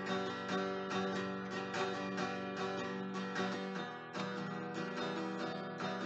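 Background music: acoustic guitar strumming a steady rhythm.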